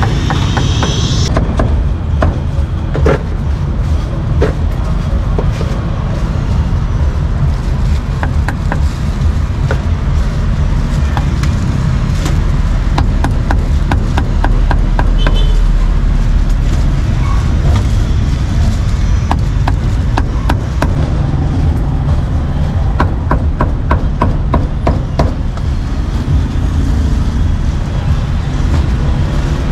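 Meat cleaver chopping roast meat on a round wooden chopping block in quick runs of sharp knocks, several a second. Under it runs a steady low rumble of street traffic and motorbikes.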